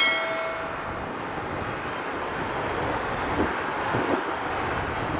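Airbus A330-300 jet engines at take-off power during the take-off roll: a steady, distant rushing roar mixed with wind on the microphone. It opens with a short ringing chime that fades within about a second.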